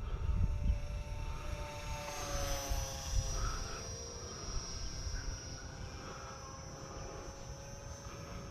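Electric motor and propeller of a small XK A250 BF-109 RC plane whining in flight, the pitch dropping about two seconds in as it flies past, then holding steady as it moves away.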